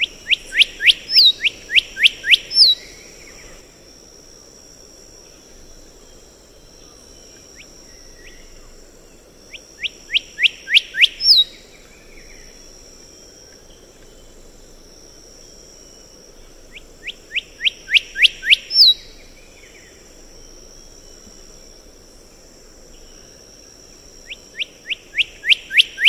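Black-headed whistler singing: four phrases about seven seconds apart, each a quick run of downslurred whistles that grow louder and end in a sharp rising "wik!". A steady high buzz runs underneath.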